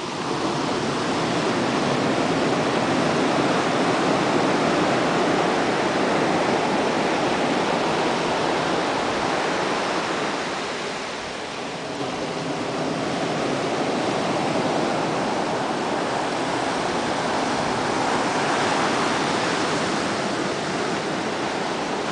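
Ocean surf breaking and washing onto a beach, a continuous rush that swells and eases, dropping off for a moment about halfway through before building again.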